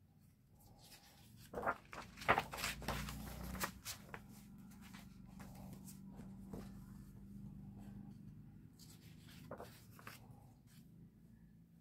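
Paper pages of an art book being turned by hand: crisp rustles and flaps, loudest and most frequent a couple of seconds in, with a few more near the end as a hand smooths the pages flat. A faint low hum sits underneath through the middle.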